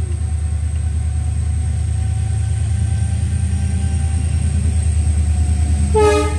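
WDG4 diesel-electric freight locomotive passing close by: a deep, steady engine drone with a faint thin whine above it. A short pitched sound comes about six seconds in.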